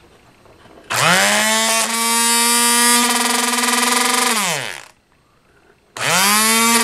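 Hang Fung HF4630 brushed AC shredder motor run unloaded on mains power with no control board. It is switched on about a second in, spins up fast to a steady high whine over a hiss, and runs for about three seconds before coasting down to a stop with falling pitch. It is switched on again near the end and spins straight back up to the same whine.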